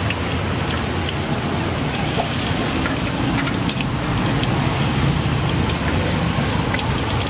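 Battered food deep-frying in a large pan of hot oil: a steady sizzle with fine crackles throughout.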